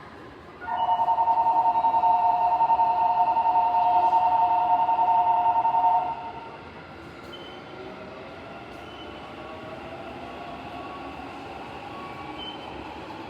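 A loud two-note warning tone holds steady for about five seconds, then cuts off. After it, a train runs with a quieter electric motor whine that rises and falls in pitch.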